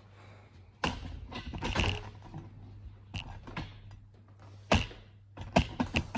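Handling noise from a phone camera being picked up and carried: a scattering of sharp knocks, clicks and rustles, over a low steady hum.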